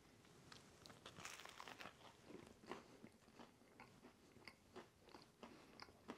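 Faint crunching and chewing as a freshly baked buttermilk biscuit is bitten into. It comes as a run of small crisp crackles, busiest about a second in.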